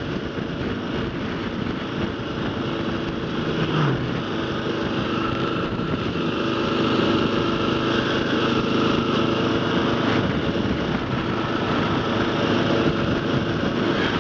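Kawasaki KLR650 single-cylinder engine running at road speed under the rush of riding wind, getting gradually louder.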